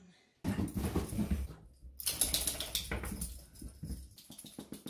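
Wet beagle puppy dashing and shaking about after her bath: fast flapping and rattling with a light metallic jingle, in two bursts with a short break about a second and a half in, then quicker light clicking near the end.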